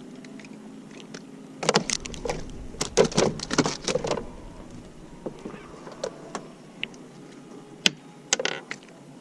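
Clattering knocks and clicks of gear being handled in a fishing boat just after a crappie is landed: a burst of several knocks, then a single sharp click and a short clatter near the end, over a faint steady hum.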